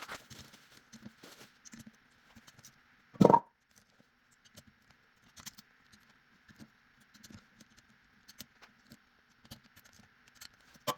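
Torque wrench and ratchet working the crankcase bolts of a two-stroke motorcycle engine: scattered small metallic clicks and ticks, with one louder knock about three seconds in.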